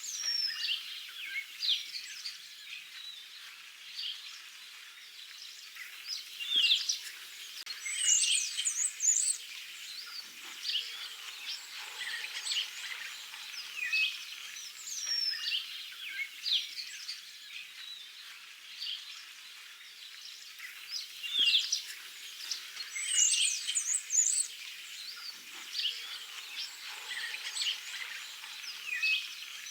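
Several small birds chirping and singing together: many short chirps and quick downward whistles overlapping. The same stretch of birdsong repeats about every fifteen seconds, like a looped ambience track.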